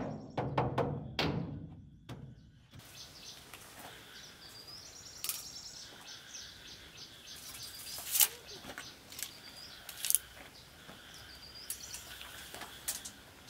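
A few last hammer blows fade out, then outdoor ambience with small birds chirping and a handful of sharp knocks.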